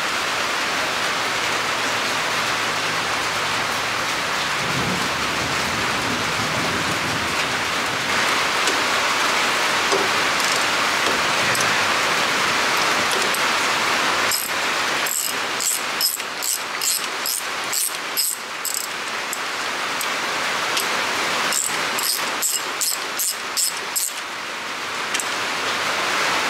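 A steady rushing hiss, then from about halfway through a hand socket ratchet clicking in quick runs of strokes, several clicks a second with short pauses between the runs, as the nuts holding the diesel injectors are worked off.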